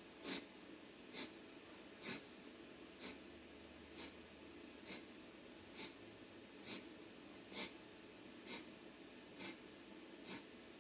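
Kapalbhati breathing: twelve short, forceful exhalations through the nose, evenly spaced at about one a second.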